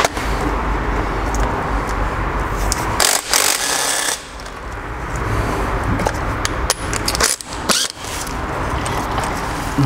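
Impact wrench hammering on triple-square driveshaft bolts, undoing the gearbox-side joint of a driveshaft, with sharp metallic clicks. It runs in bursts, with a brief drop about four seconds in.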